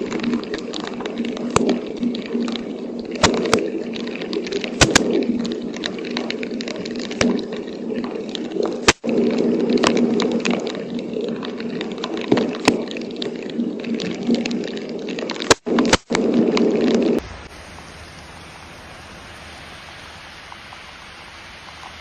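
Rushing storm floodwater, loud and steady, with irregular sharp taps throughout. About 17 s in, the sound cuts to a quieter, even hiss of rain and running water.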